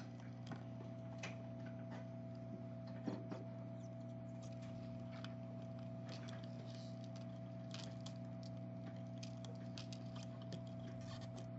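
Faint, irregular ticks and scrapes of desoldering work on a phone circuit board, over a steady electrical hum.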